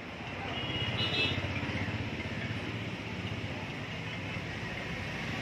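A motor vehicle's engine running steadily with a low rumble.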